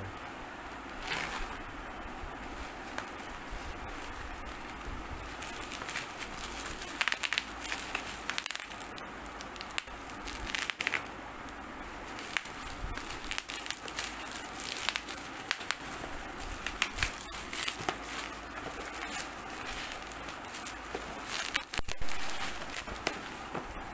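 Plastic bubble-wrap mailer crinkling and crackling as hands handle and open it, in irregular bursts, the loudest about 22 seconds in as the cardboard box is slid out.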